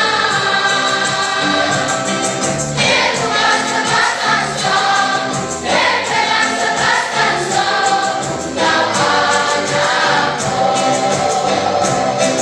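A choir singing in parts, holding long chords, with a new phrase starting about every three seconds.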